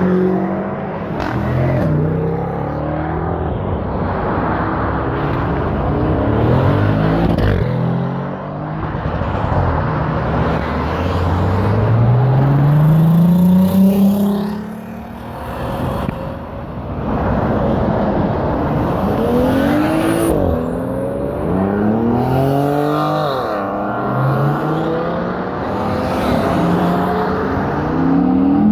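Several sports cars accelerating away one after another, their engines revving up in repeated rising notes as each pulls off and passes, with tyre and traffic noise underneath.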